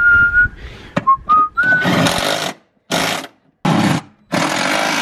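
Cordless DeWalt impact driver hammering in four bursts, the last one the longest, running bolts tight on the radiator mounting. Before them, in the first two seconds, come two short rising whistles.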